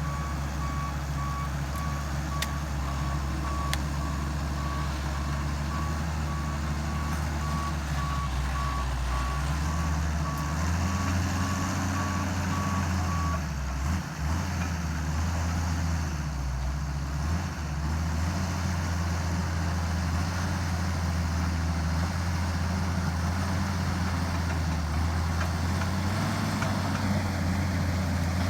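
Bulldozer's diesel engine running under load, its pitch rising about ten seconds in and dipping briefly twice, with the reversing alarm beeping steadily until it stops about halfway through as the dozer stops backing up.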